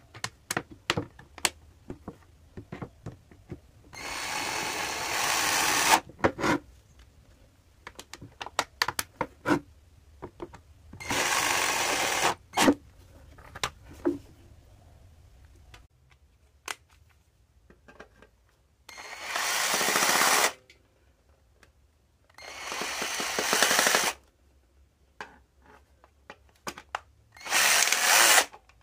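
A 12-volt cordless drill runs in short bursts of a second or two, five times, with several runs growing louder as they go. Sharp clicks and taps of handling come between the runs.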